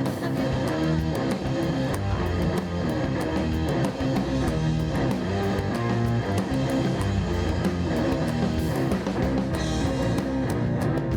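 Instrumental rock music led by guitar, with a steady beat.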